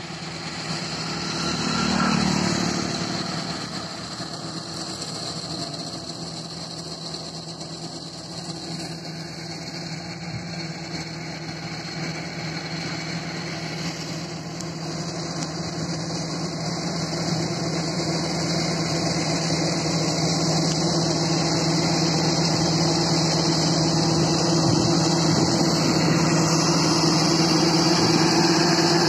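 Powertrac 439 DS tractor's diesel engine running steadily at working speed while driving a front-mounted, PTO-driven multi-crop reaper through standing crop. It grows louder as the tractor comes closer.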